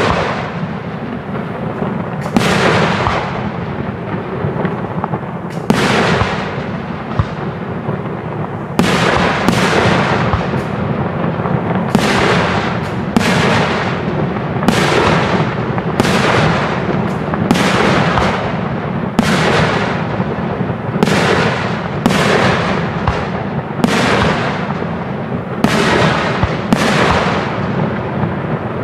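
Aerial firework shells bursting in the sky: a few bangs at first, then from about a third of the way in a quick run of them, roughly one a second or faster, each bang trailing off as it fades.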